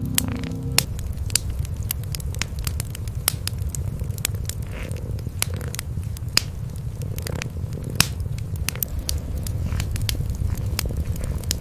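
Wood fire crackling with sharp, irregular pops, over the steady low rumble of cats purring.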